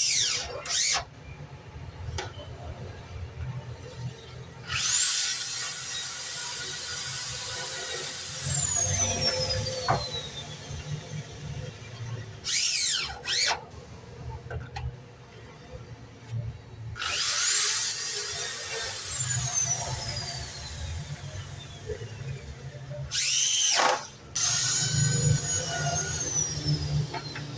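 Handheld electric power tool run in bursts. Each time, the motor whine climbs quickly to a high steady pitch, holds for a few seconds, then winds down slowly once the trigger is released. Three long runs alternate with a few short blips.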